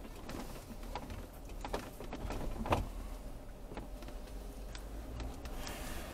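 Jeep Wrangler JKU creeping along a rough dirt trail, heard from inside the cab: a steady low engine and drivetrain rumble with scattered knocks and rattles as the body and suspension take the bumps, the loudest knock a little under three seconds in.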